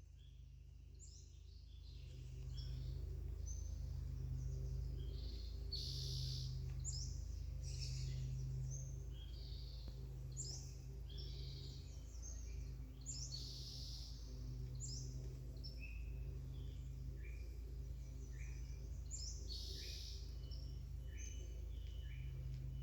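Wild birds calling, with many short chirps in quick succession, over a steady low hum. The sound fades in over the first couple of seconds.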